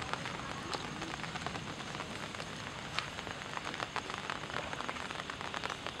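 Rain falling on a wet, puddled street: a steady patter with many small splashes of drops hitting standing water.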